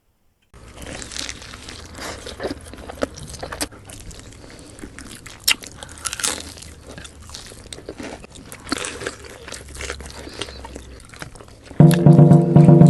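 Close-miked eating: crunchy bites and chewing of crispy food in irregular crackles. Loud music starts near the end.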